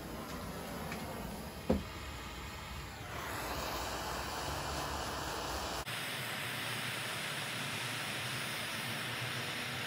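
Handheld propane torch burning with a steady hiss as its flame heats lead in a spoon to melt it. There is one sharp click about two seconds in, and the hiss grows louder and brighter about three seconds in.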